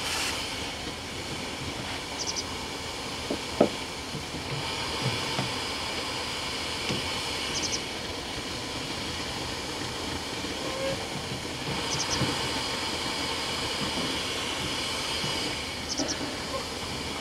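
Triple-expansion marine steam engine being warmed through: a steady hiss of steam from the open drain cocks that swells and eases, with a few light clicks and knocks.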